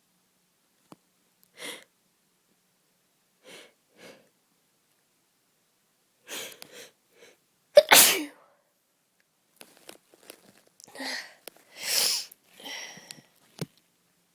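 A person with a bad cold sneezing. Short breaths build up to a loud, sudden sneeze about eight seconds in, and a second loud sneeze comes around twelve seconds, with quieter breaths just before and after it.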